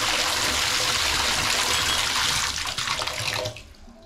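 Water pouring from a bathtub spout into the tub from a freshly rebuilt three-handle tub/shower valve, shut off at the handles: the steady rush fades out about three seconds in.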